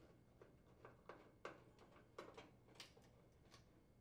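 A run of faint, irregular clicks from a screwdriver turning a screw out of the oven door's metal hinge bracket.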